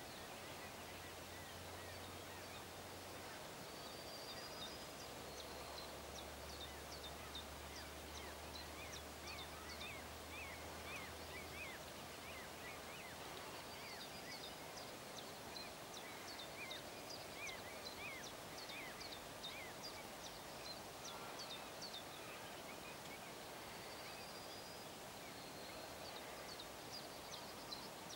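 Small birds singing, series of short high chirps repeated throughout, over a faint steady outdoor hiss; a faint low hum is present for about the first twelve seconds.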